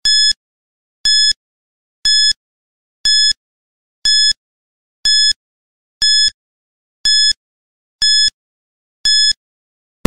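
Quiz countdown timer beeping once a second: ten identical short, high-pitched electronic beeps counting off the ten seconds left to answer.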